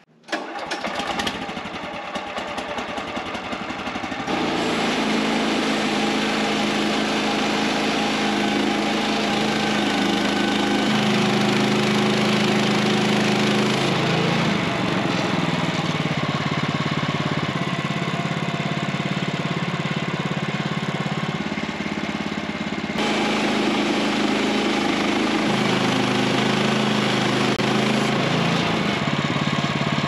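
Gasoline engine of a Woodland Mills HM126 portable bandsaw mill starting and running lower for the first few seconds, then throttled up about four seconds in. It then runs steadily while the band blade cuts along a large pine log, its pitch shifting a few times.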